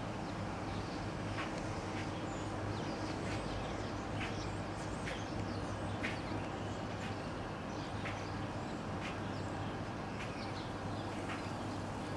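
Outdoor ambience: a steady low hum and hiss with frequent short, high bird chirps scattered throughout. The cruising airliner itself is not heard.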